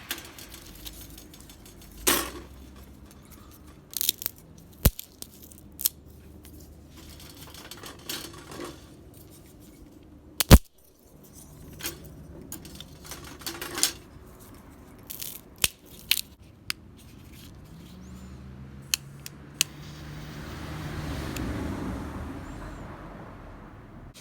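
Thin metal plates of a folding B6-size fire pit clinking, rattling and scraping as they are handled, in scattered separate knocks with one sharper clank about ten seconds in. Near the end a low hum swells up and fades away.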